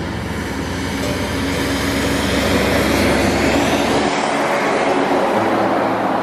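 Heavy articulated truck on the highway: a steady rushing of engine and tyres that grows louder over the first few seconds as it approaches, then holds.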